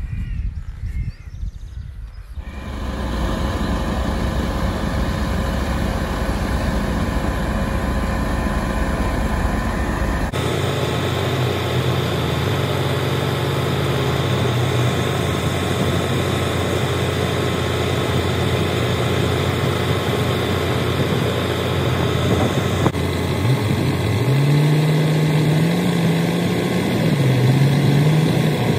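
Diesel construction machinery running steadily: a road roller, then a mobile soil-screening plant worked by an excavator and a wheel loader. Near the end an engine revs up and down a few times.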